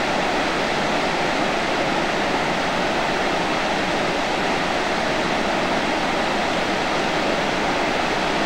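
White water of a river waterfall rushing steadily.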